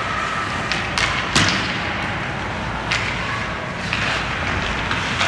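Sharp knocks of ice hockey play, sticks and puck striking each other and the boards: one about a second in, a louder one just after, and another near three seconds, over steady rink noise.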